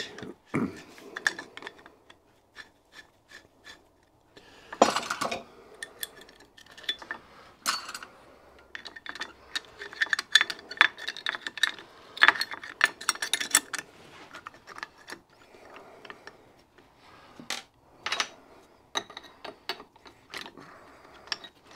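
Small brass fittings and a screwdriver clicking and clinking against a Stuart steam engine as parts are fitted by hand: irregular light metal taps and scrapes, busiest about five seconds in and again from about ten to fourteen seconds.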